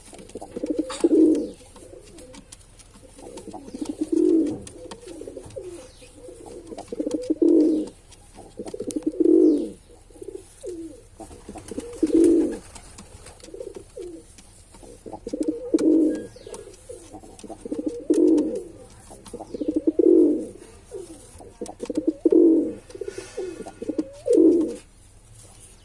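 Male domestic pigeon cooing: low, repeated coo phrases, roughly one every two seconds.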